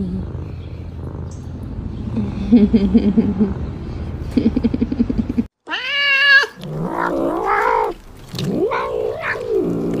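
A cat purring, a low pulsing rumble, for the first five and a half seconds. The sound then breaks off, and a tabby cat meows loudly three or four times in rising and falling yowls, begging for food.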